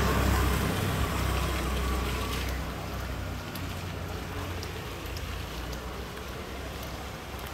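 A motor vehicle driving past and fading away over the first two or three seconds, then steady street ambience.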